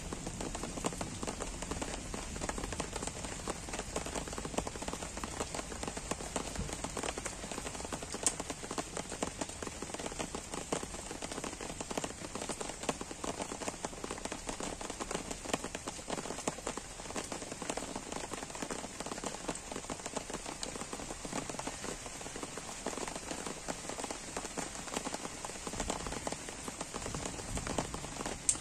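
Soft, gentle rain falling steadily on a leafy garden, with many individual drops ticking close by.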